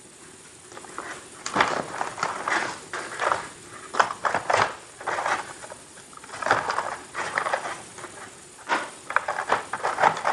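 Oreo cookie packaging crinkling and rustling as it is handled and opened, in short clusters of crackles with brief pauses between them.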